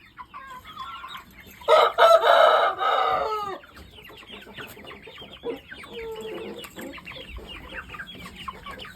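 A rooster crows once, about two seconds in: a loud call of nearly two seconds that drops in pitch at the end. Around it, a group of young chickens keep up a rapid chatter of short peeps and clucks.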